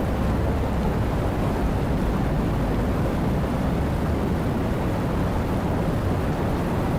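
Steady, dense rainfall, an even rushing noise weighted toward the low end with no separate drops or thunderclaps standing out.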